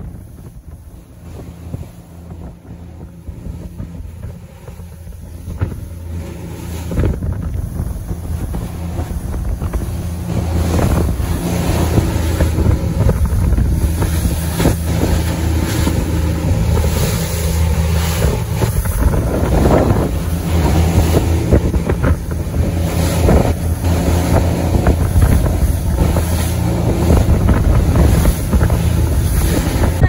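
Twin outboard engines of a 28-foot center-console boat running under way through rough seas, with wind buffeting the microphone and water rushing past the hull. It grows louder over the first ten seconds or so, with a few brief louder surges of spray.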